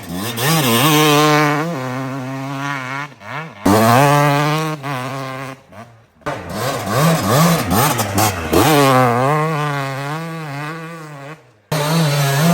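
Yamaha YZ250 single-cylinder two-stroke dirt bike engine revving up and down, loud, in several short clips joined with abrupt cuts.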